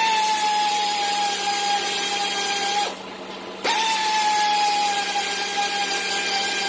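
A power tool runs twice, about three seconds each, with a gap of under a second between. Each run is a steady whine that starts a touch higher and settles slightly, as the tool backs out bolts during the small-block Chevy 350 teardown.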